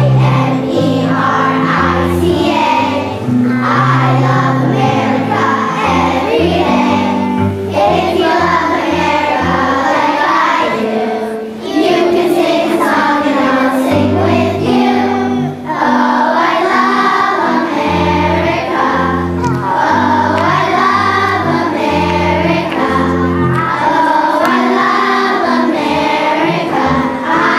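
A group of young children singing a song together, over an instrumental accompaniment of held low notes.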